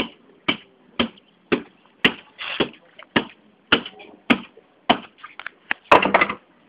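Footsteps in flip-flops slapping on dusty ground at a walking pace, about two steps a second, with a louder, longer burst of noise near the end.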